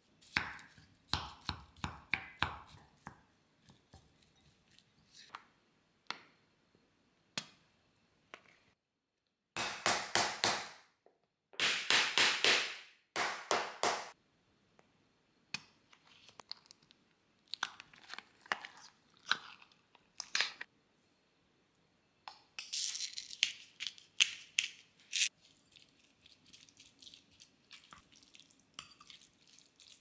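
Kitchen food-preparation sounds: scattered taps and clicks of utensils and containers, with a few seconds of rustling, crinkling noise near the middle and again about three-quarters of the way in.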